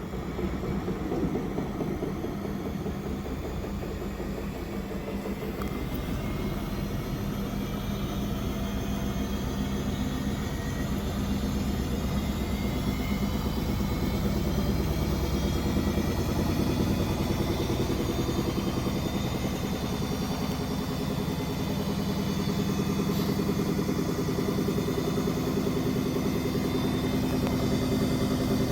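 Beko washing machine running: its drive motor gives a steady hum and a whine that slowly rises in pitch and grows louder as the drum gathers speed.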